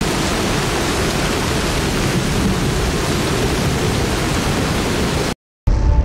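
A loud, steady rushing hiss of even noise, like static, that cuts off suddenly about five seconds in; after a brief silence, music begins near the end.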